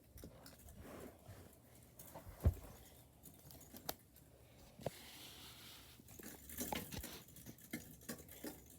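Fishing line and hook worked inside a metal floor vent: faint scattered clicks, taps and scrapes against the duct, with one sharper knock about two and a half seconds in and a soft hiss a little later.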